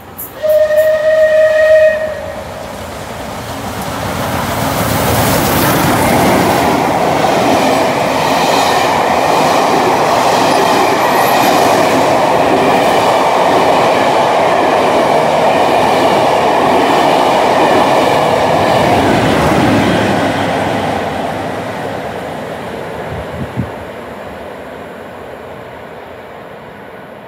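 A rail tour train sounds one loud, steady warning note for about a second and a half. It then runs through the station at speed, its coaches' wheels clattering over the rail joints. The noise builds over a few seconds, holds loud for about fifteen seconds, and fades away near the end.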